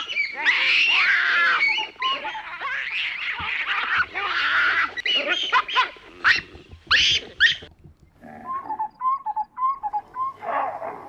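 Baboons calling: a run of harsh, noisy screams, then several short sharp barks about five to seven and a half seconds in, then a few quieter, shorter calls after a brief lull.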